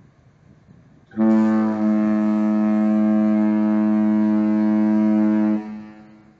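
Cruise ship MV Ventura's horn sounding one long, low, steady blast, starting about a second in and holding for about four and a half seconds before stopping with a brief fading echo. It is the ship's fog signal, sounded in thick fog.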